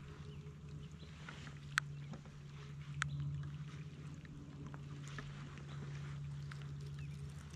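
Light rain falling on a kayak and the lake around it: scattered small drips and taps, with two sharper ticks about two and three seconds in, over a steady low hum.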